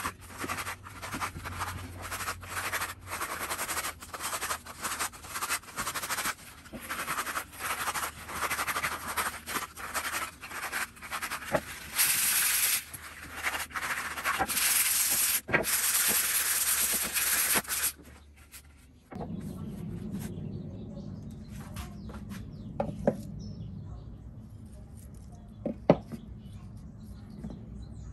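Sandpaper being rubbed by hand over a wooden board in quick back-and-forth scraping strokes, which run together into steadier scraping for the last few seconds. After a cut about 19 seconds in, there is a quieter low hum with a few light knocks.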